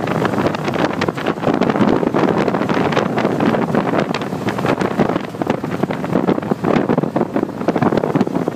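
The 401 Nailhead V8 of a 1949 Ford F1 truck running as the truck drives along, heard from inside the cab, with wind buffeting the microphone.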